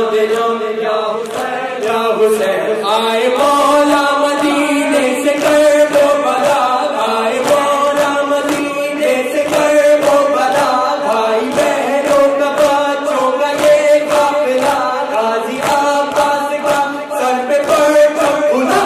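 Noha recitation: male voices singing a mourning lament through microphones, with a crowd of men chanting along. Under the singing runs a steady rhythm of sharp slaps, typical of matam chest-beating.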